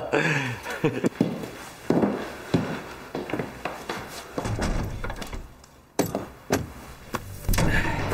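Irregular dull thuds and knocks with scuffling between them, a sharper knock about six seconds in.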